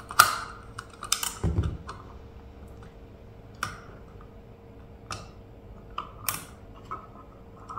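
Scattered sharp clicks and light knocks of hard plastic being handled, with one dull low thump about one and a half seconds in: the parts of an IP55 outdoor socket and its junction box being pushed together over the wires.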